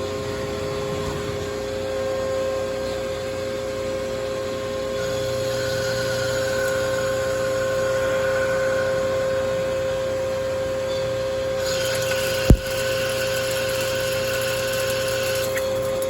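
Mazak Quick Turn 15N CNC lathe running a short test program: a steady machine hum with a higher whine that rises in about five seconds in and again near the end, and one sharp clunk about twelve seconds in.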